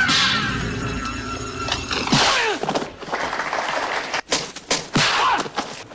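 Music fades out in the first second or two, then a run of quick swishing whooshes follows, several falling in pitch, mixed with sharp clicks.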